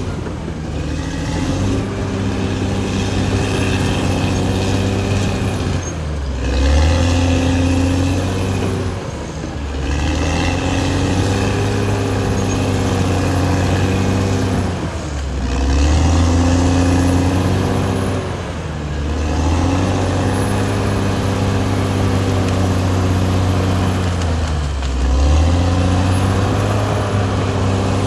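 Caterpillar D6R XL bulldozer's diesel engine running hard, its note sagging and picking up again every four to six seconds.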